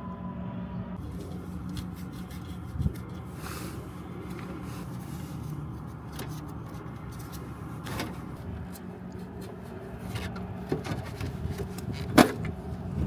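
Scattered clicks and metal knocks from hand tools and sheet-metal parts as the inducer motor is worked on in a rooftop HVAC unit, over a steady low hum. The sharpest knock comes near the end.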